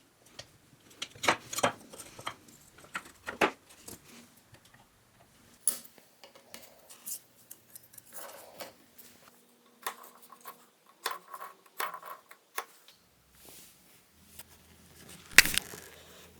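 Irregular small metallic clicks, clinks and knocks of small steel parts being handled and worked at a bench, with one sharp knock, the loudest, near the end.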